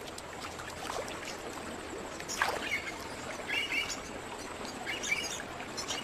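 Gentle trickling and lapping of slow river water, with a few short bird chirps scattered through and one quick falling call about halfway.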